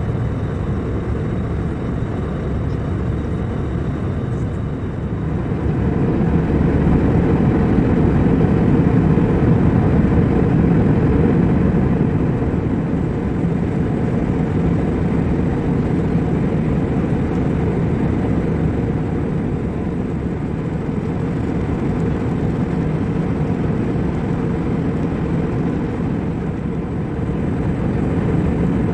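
Steady cabin noise of an airliner in cruise: a low rumble of jet engines and airflow. It swells slightly a few seconds in, then settles back.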